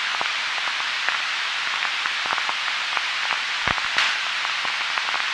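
Steady hiss of a faint smartphone recording, with irregular crackles and clicks scattered through it and a sharper pop about three and a half seconds in.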